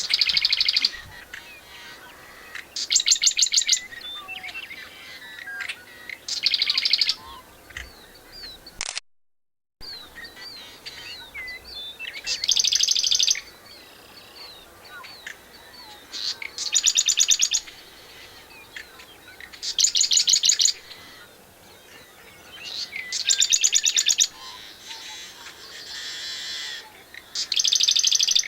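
Marsh wren singing: a fast trill of evenly spaced notes about a second long, repeated every three to four seconds, with fainter chirps from other marsh birds between songs. The sound drops out for about a second near nine seconds in.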